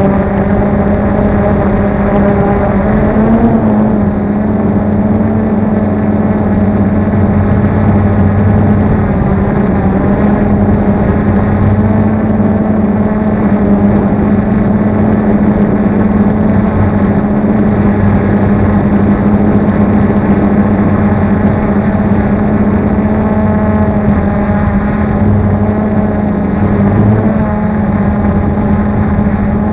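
Multirotor drone's motors and propellers buzzing loudly at a steady pitch, picked up close by the onboard camera's microphone as the drone climbs. The pitch lifts briefly about three seconds in.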